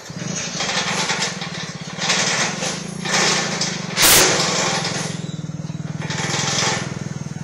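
Lorry engine idling with a steady, evenly pulsing hum. A short loud burst of noise cuts in about four seconds in.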